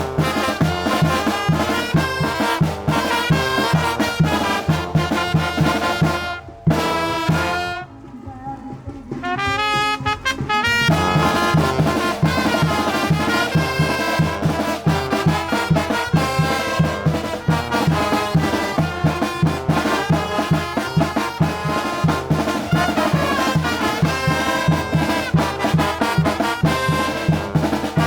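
Brass band playing a chilena: trumpets and trombones over a steady beat. About six seconds in, the beat drops away for a few seconds, leaving a thinner melodic line, then the full band comes back in.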